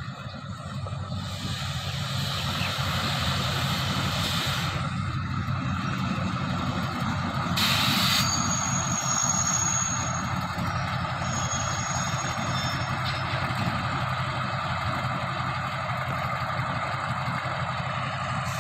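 Alsthom diesel-electric locomotive 4224 running as it hauls a passenger train slowly into the station, a steady low engine drone. About eight seconds in there is a short burst of hiss, followed for several seconds by a thin high-pitched squeal.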